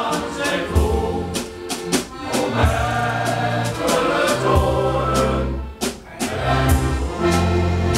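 Male shanty choir singing a sea shanty with accordion accompaniment and a drum kit keeping a steady beat of about one stroke a second, with a brief lull between phrases about six seconds in.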